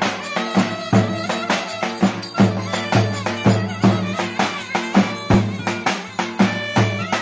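Traditional Turkish folk dance music: a reed wind instrument with a bagpipe-like sound over a steady percussion beat of about two strokes a second.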